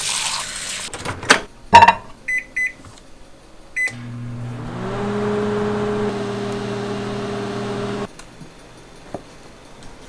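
A faucet runs for about a second, then come two loud clacks and a few short keypad beeps from a microwave oven. The microwave then starts up and runs with a steady electric hum, its tone rising briefly as it starts, heating a mug of water for tea. The hum cuts off abruptly about eight seconds in.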